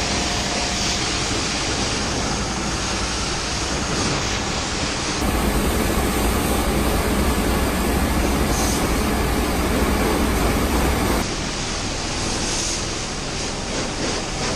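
Pressure washer (jet wash) spraying the bodywork of a bus at close range: a steady loud hiss of water on panels. About five seconds in it turns into a deeper, fuller rush for around six seconds, then goes back to the hiss.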